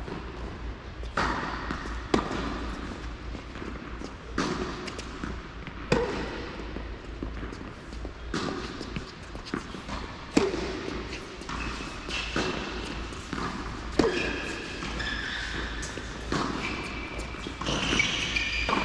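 Tennis rally on an indoor hard court: racket strings striking the ball back and forth, a sharp knock every second or two, with the ball's bounces and some short high squeaks between hits.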